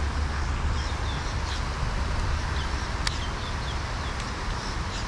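Small birds chirping repeatedly over a steady outdoor rumble and hiss, with a single sharp click about three seconds in.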